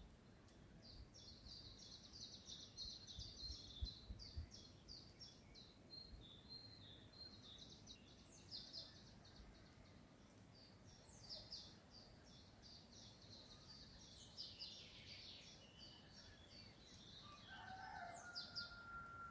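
Faint songbirds chirping and trilling, in quick runs of high notes that come and go, over a soft background hush. A lower, drawn-out call sounds near the end.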